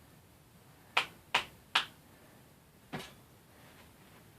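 Sharp knocks of a hard object striking a phone to crack it open: three in quick succession about a second in, then a weaker one near the end.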